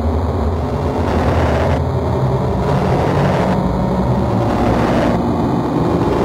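Dark ambient experimental music: a dense, steady rumbling drone of noise with a deep low end, pulsing about every second and a half to two seconds in its upper range.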